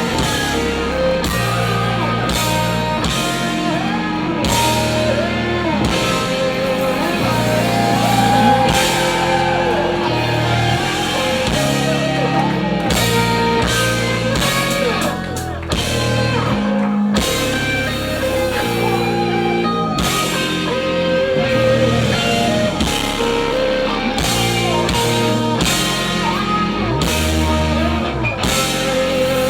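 A live rock band playing: guitars, bass and drums, with melodic lines over a steady rhythmic bass.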